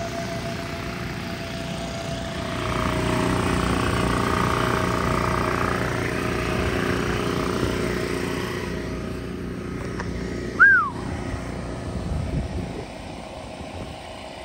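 Portable gasoline generator and the electric blower fans inflating a landing airbag, running steadily. About ten seconds in, one short whistle-like note falling in pitch stands out as the loudest sound.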